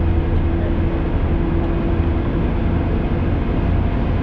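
Steady low rumble of a moving road vehicle heard from inside its cabin: engine drone and road noise, with a steady hum that fades about halfway through.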